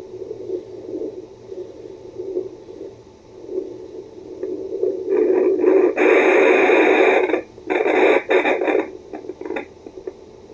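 Home fetal doppler's speaker giving a low, uneven rumbling static as the probe searches for a fetal heartbeat. About five seconds in it breaks into loud, scratchy crackling for a few seconds as the probe slides over the gel-covered skin.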